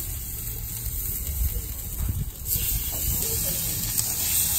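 Fresh squid pieces sizzling as they are laid one after another on a hot barbecue flat plate, a steady hiss that grows louder about two and a half seconds in as more pieces go down, over a low rumble.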